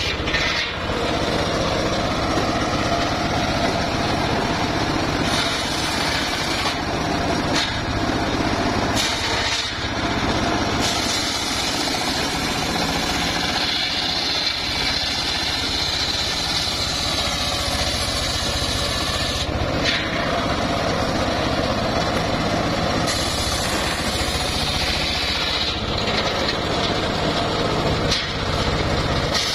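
Homemade engine-driven circular sawmill running, its large blade sawing through hardwood logs. A high whine from the cut grows and fades as each pass through the wood starts and ends.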